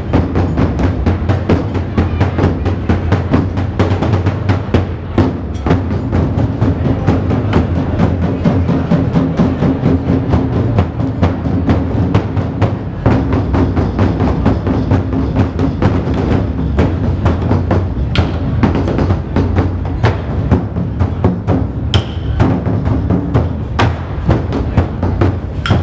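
Ensemble of large Chinese barrel drums beaten with sticks, playing a fast, dense, unbroken rhythm of many strokes with a deep boom.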